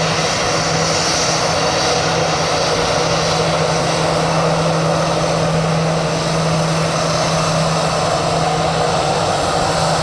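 Airbus A320-214's CFM56-5B turbofan engines running at taxi power as the airliner rolls slowly on the ground: a steady jet rush over a constant low hum.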